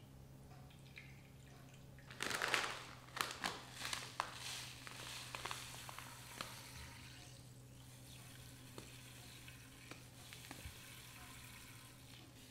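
Granulated sugar poured from a paper bag into milk in a bamboo bowl, a soft hissing pour. About two seconds in comes a louder burst of rustling and sharp clicks, which fades into the hiss and then to faint ticks.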